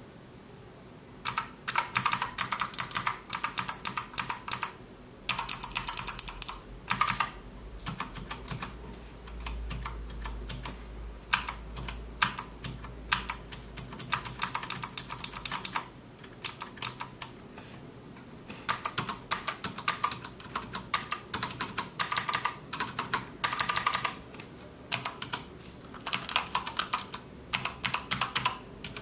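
Typing on mechanical keyboards with Cherry MX Brown and Kailh Blue switches: fast runs of key clicks in bursts of a second or a few seconds, separated by short pauses. There is a quieter, sparser stretch of keystrokes near the middle.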